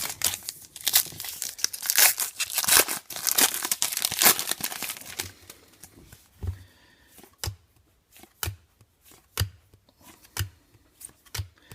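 Foil wrapper of a trading card pack crinkling and tearing for the first five seconds or so, followed by a string of light taps and flicks as cards are handled.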